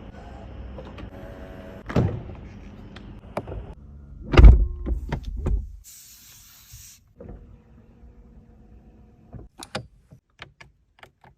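New car's power-window motor and door mechanisms: a steady low hum, a knock about two seconds in, and a heavy door-shutting thump about four and a half seconds in, then a short hiss and a run of light clicks.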